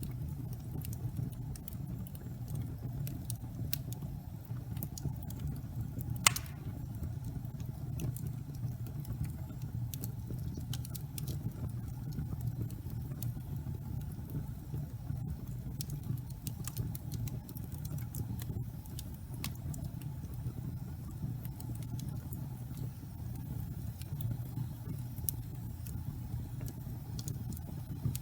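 Wood fire burning in a fireplace: a steady low rumble with scattered small crackles, and one louder pop about six seconds in.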